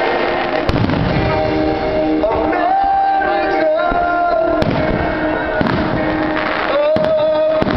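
Aerial fireworks shells bursting with several sharp bangs, a few seconds apart, over continuous music.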